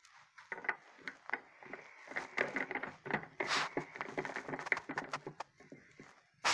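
A silicone spatula stirring a runny glue-and-laundry-detergent slime mixture in a glass bowl: irregular taps and scrapes against the glass, with a longer scrape about three and a half seconds in.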